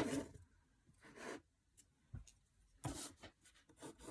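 Short scratchy strokes of drawing on paper, coming in irregular bursts, the loudest right at the start.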